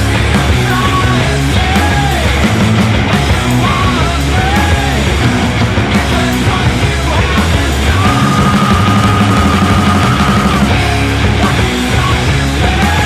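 Background rock music with a sung vocal line, loud and steady, with one long held note about two-thirds of the way through.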